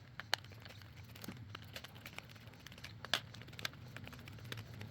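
Faint, scattered small clicks and ticks of a Phillips screwdriver working the screws out of a plastic GFCI plug housing, with a few sharper clicks about a third of a second in, around one second and around three seconds.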